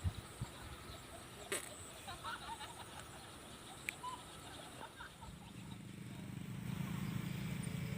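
Faint outdoor ambience with a few scattered short calls and a sharp click in the first half, then a low hum that swells steadily from about halfway through.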